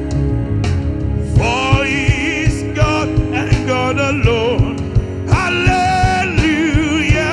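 Gospel praise and worship song: a singing voice with wide vibrato over band accompaniment with a steady beat.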